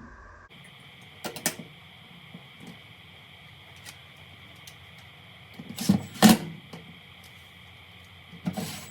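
Hands working a new washer door lock and its parts: a few sharp plastic-and-metal clicks and knocks, loudest about six seconds in.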